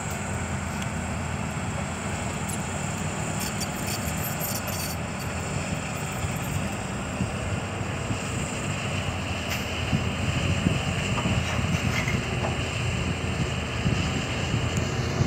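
Diesel engine of a CAT 320D excavator running steadily while it works, a continuous low hum.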